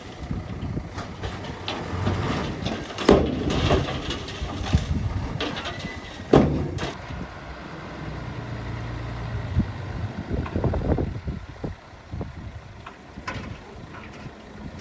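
Bulldozer's diesel engine running under work, with two loud knocks about three and six seconds in.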